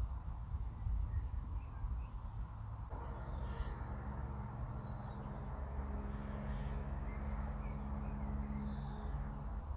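Birds calling and chirping outdoors over a steady low rumble. After about three seconds a steady low drone joins in.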